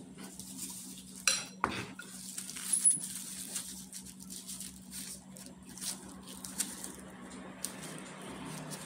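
A metal kitchen knife clinks with a short ring about a second in, then knocks once. Small taps and scrapes follow as the knife peels the skin off a peach, over a steady low hum.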